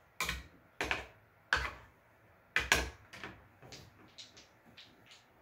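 Sharp clacks of dice and casino chips being handled on a craps table: four louder knocks in the first three seconds, then a run of lighter ticks.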